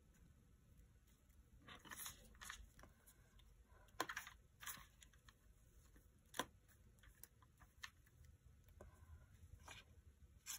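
Faint rustling and small sharp ticks of a paper sticker sheet being handled, with a sticker pressed onto a paper envelope; most of the rustling falls in the first half.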